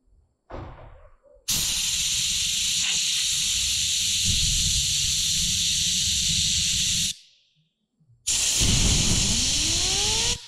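Two long blasts of hissing air that start and stop sharply, the first about five and a half seconds and the second about two. During the second, a whine rises steadily in pitch as something spins up.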